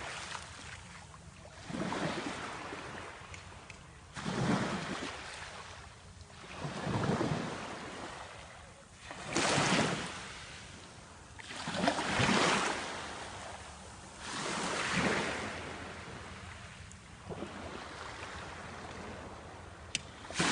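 Small sea waves breaking on the shore one after another, each swelling and washing back about every two and a half seconds.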